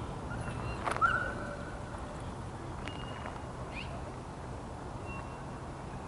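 Low steady rumble of a distant approaching diesel freight train, with a short sharp animal call about a second in and a few faint bird chirps.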